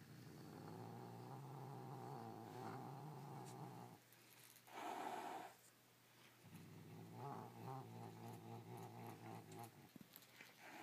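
Domestic cat growling low and long while guarding a toy, with a brief louder snarl about five seconds in, then growling again in a wavering, pulsing way.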